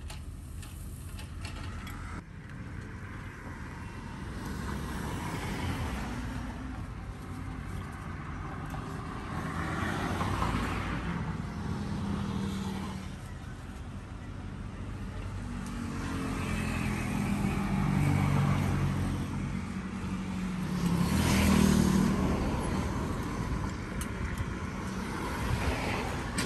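Road traffic going by: several motor vehicles pass one after another over a steady street rumble, each swelling and fading, the loudest about twenty seconds in.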